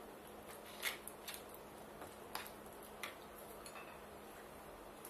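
Faint scattered clicks and light taps from hands handling soaked, still-wet bean curd stick pieces and a ceramic bowl on a wooden cutting board.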